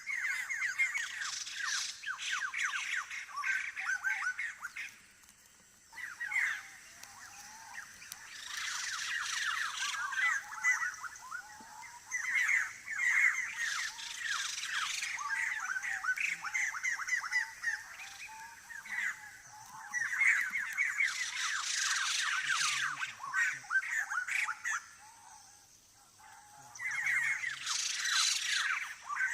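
Forest birds calling in long bouts of rapid, rattling chatter, each bout lasting several seconds with short pauses between.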